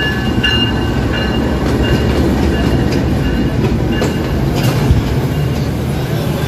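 Passenger train coaches rolling past along the platform as the train pulls into the station: a loud, steady rumble of wheels on the rails.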